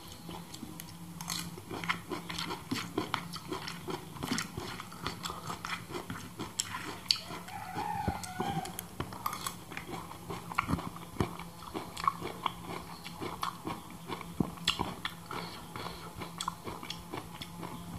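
Close-up chewing and mouth sounds of a person eating a chopped mash by the spoonful, with irregular small clicks and crackles from the mouth and a metal spoon on a banana leaf.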